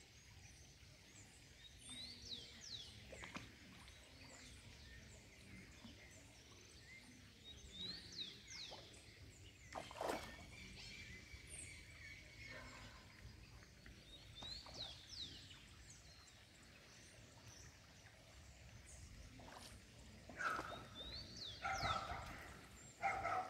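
Faint outdoor bird calls: a short phrase of quick, high sweeping notes repeated every few seconds over a quiet rural background, with a single sharp click about ten seconds in.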